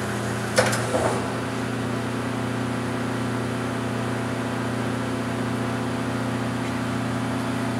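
Okuma LC20 CNC lathe running under power with a steady, even hum. Two short clicks come about half a second and a second in.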